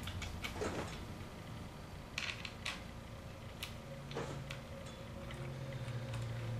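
Faint, irregular clicks and scrapes of an Allen key turning a short bolt, fitted with spring and flat washers, through a metal leg frame into a wooden bench seat. A low hum runs underneath.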